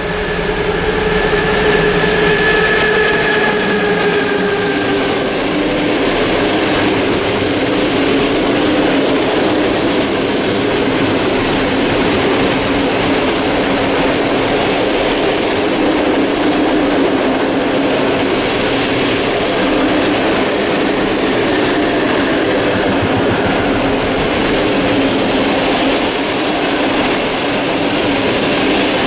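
Electric locomotive hauling a long container freight train through a station: a whine that falls in pitch over the first few seconds as the locomotive passes, then the steady rumble and clack of the container wagons' wheels rolling by on the rails.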